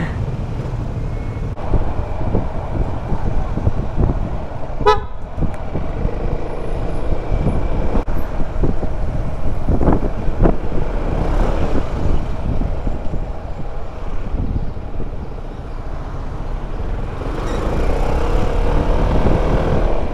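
Riding noise from a scooter in city traffic: steady wind rumble on the microphone under passing traffic. A short vehicle horn toot sounds about five seconds in.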